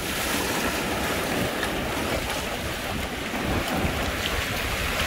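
Shallow surf washing and foaming over a sandy beach, with wind buffeting the microphone.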